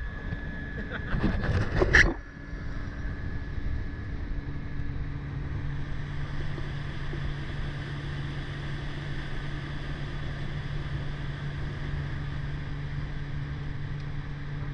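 Outboard motor of an inflatable dive boat running steadily at low speed, a constant hum that settles onto a steadier low note about four seconds in. The first two seconds hold loud buffeting on the microphone.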